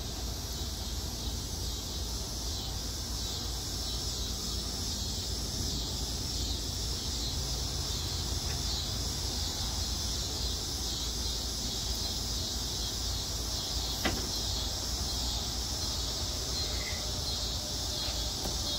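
Backyard ambience at dusk: a steady high-pitched insect chorus over a low rumble, with a single sharp click about fourteen seconds in.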